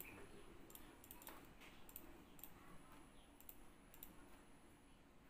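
Faint, scattered clicks of a computer mouse and keyboard keys being pressed at a desk.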